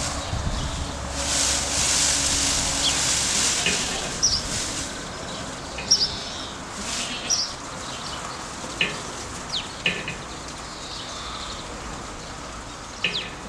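Short, sharp chirps of small birds, scattered every second or so. A rustling hiss swells about a second in and fades after about four seconds.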